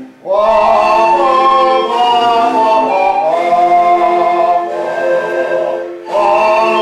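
An ensemble of firlinfeu, Lombard cane panpipes, playing sustained chords in several parts, the harmony shifting every second or so. The band breaks off briefly right at the start and again about six seconds in, each time coming back in together.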